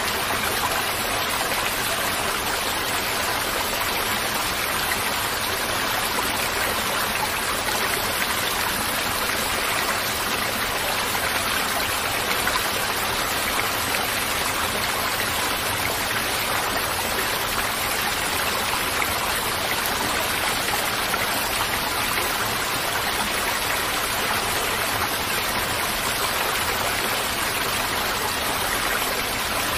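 A steady, even rush of flowing stream water.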